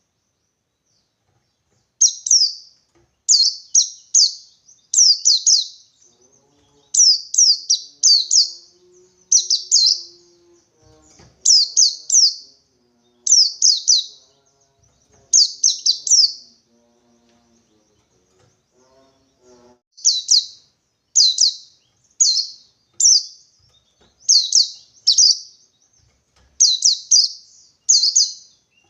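White-eye (pleci) singing its 'ngalas' song in bursts of two or three quick, high chirps, repeated about once a second, with a pause of a few seconds past the middle.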